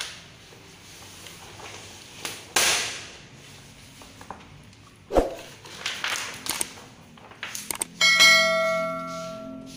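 Vinyl wrap film rustling and scraping as it is stretched and squeegeed over a car panel, with a sharp thump about five seconds in. About eight seconds in, a loud bell-like chime of several tones rings out for nearly two seconds: a subscribe-button sound effect.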